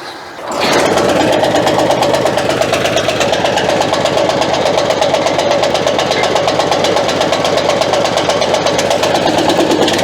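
Crytec wood chipper starting about half a second in, then running steadily with no wood being fed, on a test run with newly fitted blades.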